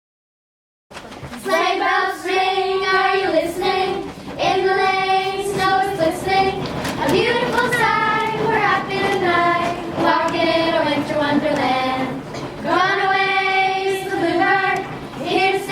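A group of children singing a song together in unison, with long held notes. The singing starts after about a second of silence.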